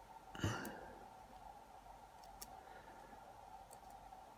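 Small metal lock parts being handled at a bench: one sharp clack about half a second in, then a couple of faint ticks, over a faint steady hum.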